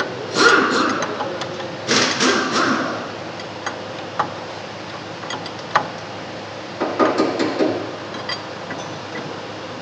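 Hand tools working the caster adjusting nuts on a front strut rod: three short spells of metallic clanking and scraping, with scattered single clicks in between, as the caster setting is shifted.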